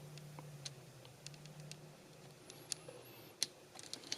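Faint, scattered clicks of small plastic action-figure parts being handled and snapped together as a replacement head is tabbed onto the figure, with one sharper click near the end.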